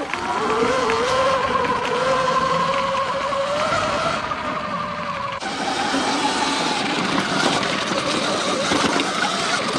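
Sur-Ron X electric dirt bike's motor whining under heavy load on a steep uphill climb, the whine rising slightly in pitch. About halfway through it cuts to a noisier rush of tyres on loose rock, with the motor whine fainter.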